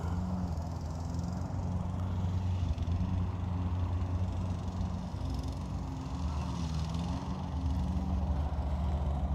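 A car's engine and road noise heard from inside the moving car: a steady low drone that shifts a little in pitch.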